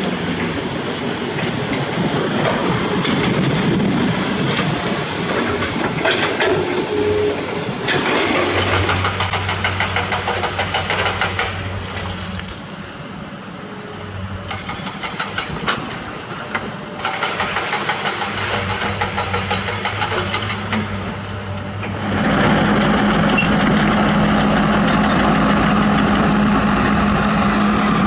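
Komatsu PC200 hydraulic excavator's diesel engine running under load as it works, with a fast rattle through the middle. About 22 seconds in the sound changes abruptly to a louder, steadier diesel engine with a constant low hum: the Komatsu D31P crawler dozer running.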